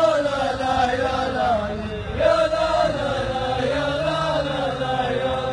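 Male voices chanting a line of Arabic rajaz poetry in long, drawn-out melodic phrases, with a brief break about two seconds in.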